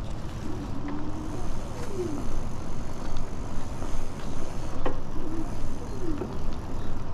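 Wind rushing over the microphone and tyre rumble from a Ride1Up Cafe Cruiser e-bike riding on a paved path. A couple of short falling tones come through twice, and there is a click about five seconds in.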